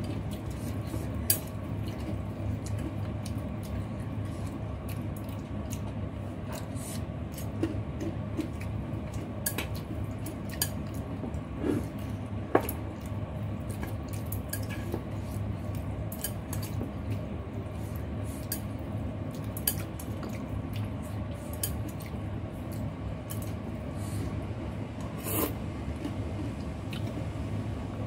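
Close-up eating sounds: wet chewing of rice vermicelli noodles, with scattered sharp clicks of chopsticks on a bowl. A steady low hum runs underneath.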